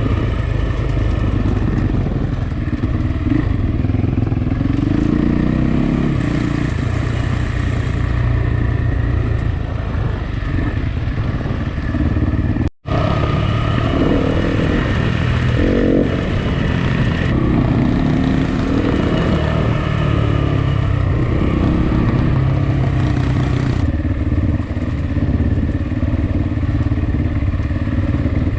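Dirt bike engine running under load, its revs rising and falling as it rides, with a brief dropout about 13 seconds in.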